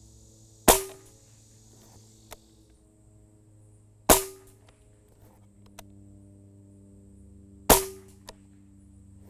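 Benjamin Maximus .177 pre-charged pneumatic air rifle firing three shots about three and a half seconds apart, each a sharp crack followed by a short ringing tone.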